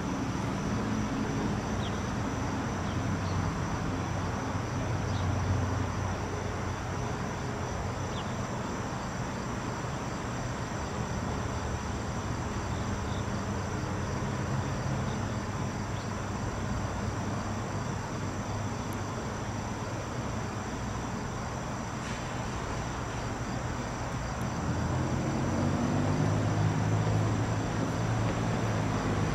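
Steady high-pitched drone of insects in the summer trees, over a low engine rumble that grows louder about 25 seconds in.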